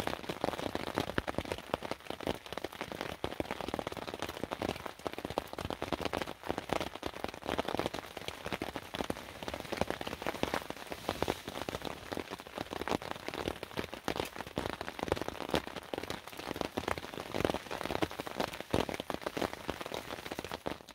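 Rain falling on a tarp shelter overhead: a dense, uneven stream of small drop taps.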